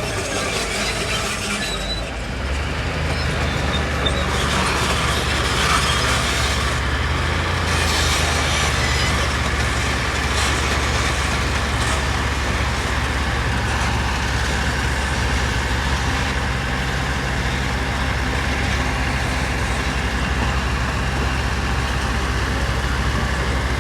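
Heavy diesel construction machinery running steadily under load: a deep, constant engine drone that comes in about two seconds in, with occasional knocks in the first ten seconds.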